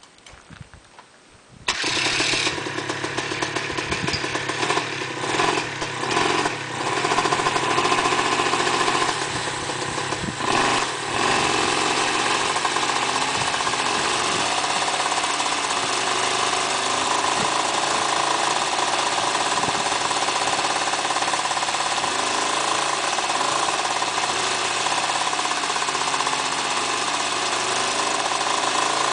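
Homebuilt coaxial ultralight helicopter's engine catching about two seconds in, running unevenly with dips for the first several seconds, then settling into steady running as the coaxial rotors turn on a ground run-up.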